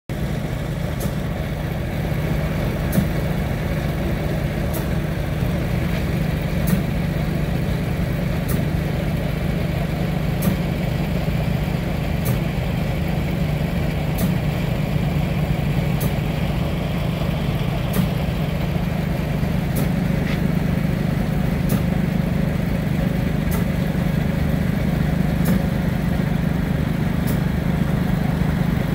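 Sealcoat spray rig's engine-driven pump running steadily, a constant drone, with a faint tick repeating about every two seconds.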